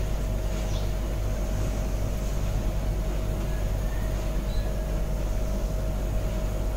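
A steady low mechanical hum with a constant faint whine, with a few faint scrapes of a steel spoon as thick wheat paste is scraped from a steel bowl into a steel pot.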